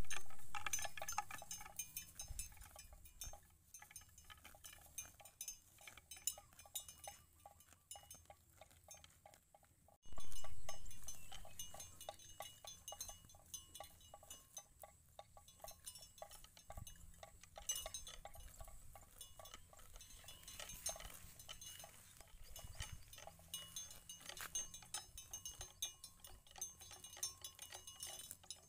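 Cattle grazing: a run of quick clicks and crunches as grass is torn, with light bell-like clinking throughout. It swells suddenly louder at the start and again about ten seconds in, fading away each time.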